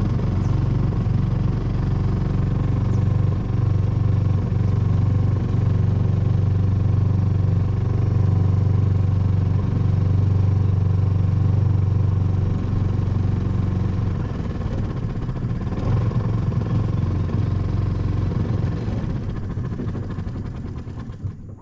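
Small boat's outboard motor running steadily at a constant speed. It eases off over the last couple of seconds and then cuts out.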